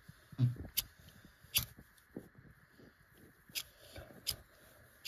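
A spark fire starter being struck again and again to light tinder in a cold wood stove: four or five sharp, short strikes at uneven gaps of one to two seconds, with no flame catching. Soft rustling of paper and tinder is heard between the strikes.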